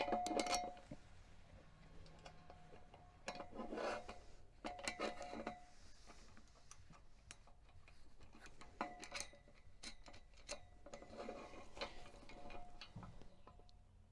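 Metal cam-lock gate hinge parts clinking, clicking and scraping against the metal gate pipe as they are fitted, in scattered clusters, a few of the clinks ringing briefly.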